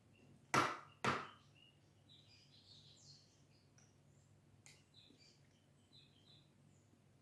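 Two short, sharp noises about half a second apart near the start, then faint scattered bird chirps in the background.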